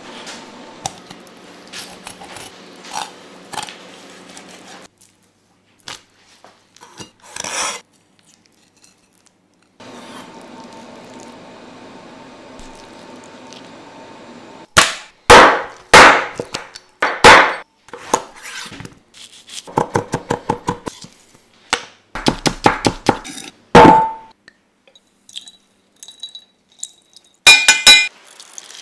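Kitchen knife work on a wooden cutting board: scattered knocks and scrapes, several loud chops about halfway through, then a fast, even run of chopping. Near the end, bright clinks of a glass bowl.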